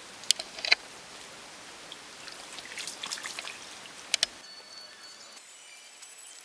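Small creek trickling, with a few sharp clicks: two near the start and a quick pair about four seconds in. Shortly after, the water hiss drops away abruptly, leaving a quieter background with faint, thin high tones.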